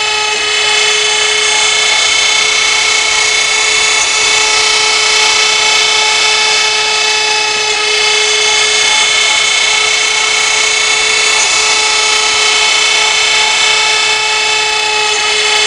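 CNC router spindle running at a steady high speed, a constant high-pitched whine over an even hiss.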